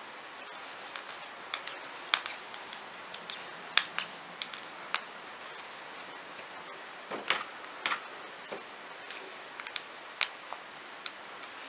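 Metal circular knitting needles clicking and tapping against each other as stitches are knitted: light, irregular clicks, a dozen or so, over a faint steady hiss.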